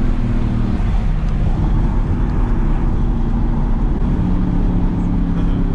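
Mercedes-AMG GT S twin-turbo V8 running at a steady cruise, heard inside the cabin as a low, even engine drone with tyre and road noise.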